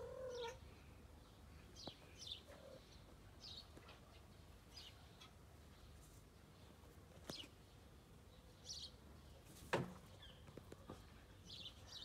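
Faint bird chirps, short calls scattered through near-quiet surroundings. A single sharp click about ten seconds in is the loudest sound.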